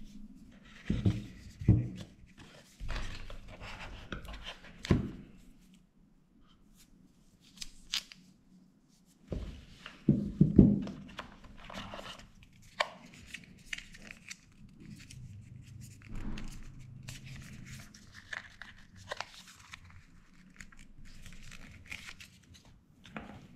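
Cardboard phone packaging being handled and unpacked: irregular rustling and scraping of the box and its inserts, with several sharp knocks as parts and the charger are set down on the table, the loudest about ten seconds in.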